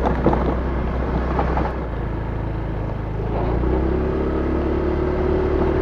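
Vehicle engine running with road and wind noise while driving along, with a few knocks and rattles in the first couple of seconds; the engine note grows louder and steadier about three and a half seconds in.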